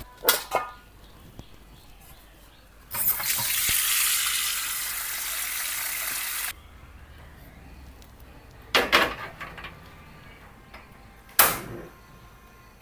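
Kitchen tap running into a metal wok for about three and a half seconds, then shut off suddenly: the wok is being filled with water for boiling noodles. Before and after come a few short clatters, the last a sharp click near the end as the gas stove's burner knob is turned.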